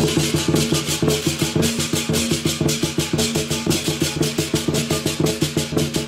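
Lion dance percussion: a big drum struck in a fast, steady beat of about seven strokes a second, with crashing cymbals and a ringing gong on top. The beat turns dense with a loud stroke right at the start.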